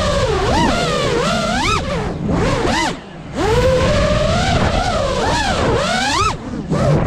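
Brushless motors and propellers of a 5-inch FPV freestyle quadcopter whining, the pitch swooping up and down quickly with throttle changes. The sound drops off sharply about three seconds in and again near the end as the throttle is cut, then picks back up.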